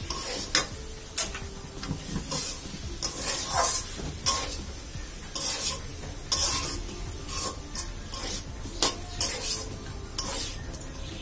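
Metal spatula scraping and knocking against an aluminium karai as boiled ash gourd leaves are stirred, in irregular strokes about once a second. Under it a steady sizzle as the last of the boiling water cooks off the leaves.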